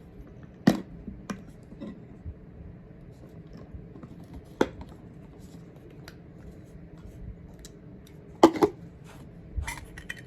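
Pieces of a Stanley two-cup cook set being handled: a few sharp clicks and clanks of the pot, cups and lids knocking together, spaced seconds apart, with a louder double knock late on.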